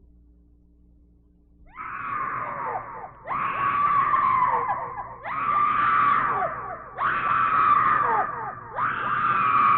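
A faint low hum, then about two seconds in a run of five long, high screams one after another, each held on one pitch before trailing downward.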